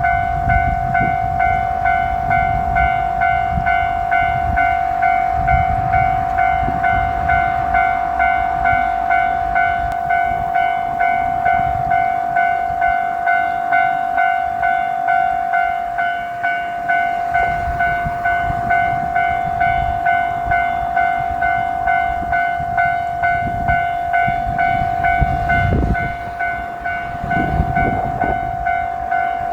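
Japanese railroad crossing bell ringing its steady "kan-kan" in even, regular pulses. Underneath is the low rumble of a JR 1500 series diesel railcar passing over the crossing, heaviest at the start and again near the end.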